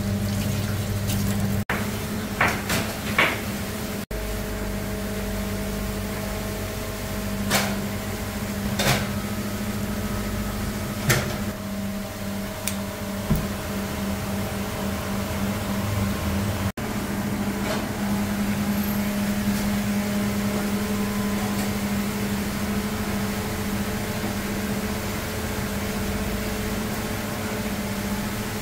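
A steady low mechanical hum, kitchen machinery running, with a few short clinks and knocks scattered through the first half.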